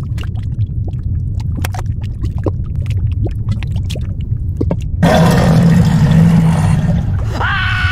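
Fire-and-lava sound-effect ambience: a steady low rumble with scattered crackles and pops. About five seconds in it changes abruptly to a louder rushing noise, and near the end a shrill creature cry begins, rising and then gliding slowly down.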